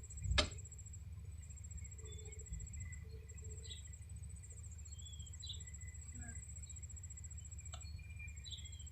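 A faint, steady, high-pitched insect trill runs throughout, with a single knock about half a second in and a few short bird chirps.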